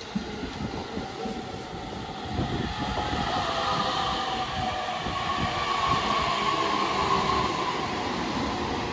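E233-3000 and E231-1000 series electric commuter train rolling past at low speed, its wheels on rails freshly ground by a Speno rail grinder giving a resonant whining hum of several tones over the rumble. The tones slowly fall in pitch as the train slows, and the sound grows louder from about two and a half seconds in.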